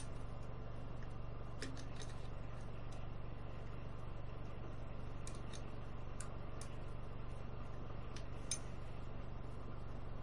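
Half-inch wrench working a carburetor mounting bolt, giving scattered light metal clicks every second or so, over a steady low hum.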